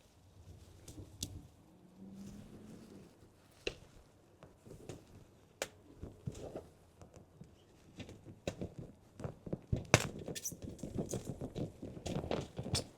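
Hands working plants and potting soil in pots: irregular rustling, scraping and light knocks, busier in the second half, with one sharp knock about ten seconds in.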